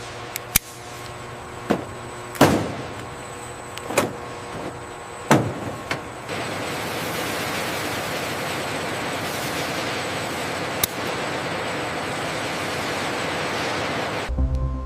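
Seven sharp knocks or slams spread over the first eleven seconds, then a steady rushing noise from about six seconds in.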